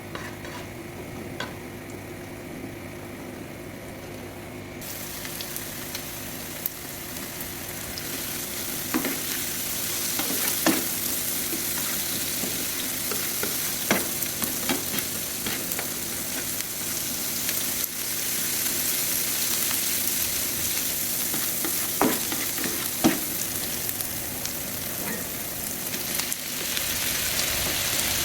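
Food sizzling in hot oil on a tawa (flat griddle pan) while a spatula stirs it, with occasional sharp knocks and scrapes of the spatula against the pan. The sizzle comes in about five seconds in and grows louder.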